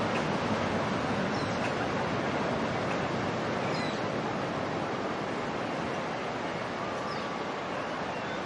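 Beach ambience: a steady wash of surf, with a few faint, short, high bird calls scattered through it.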